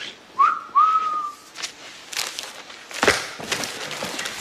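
A person whistles two notes: a short rising one, then a longer one that rises and holds. A few knocks and thuds follow.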